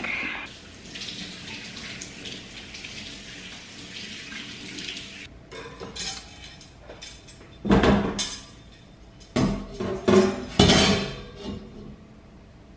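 Running water hissing steadily, then cutting off suddenly, followed by several loud clattering knocks of hard objects being handled and set down.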